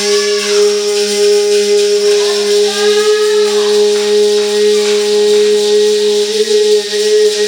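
Music: a steady organ-like chord held throughout, with a tambourine shaking and voices gliding up over it a few times.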